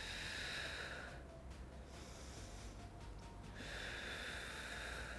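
A woman's deep exercise breaths, paced with a seated dumbbell movement: one long breath in the first second and another starting about three and a half seconds in.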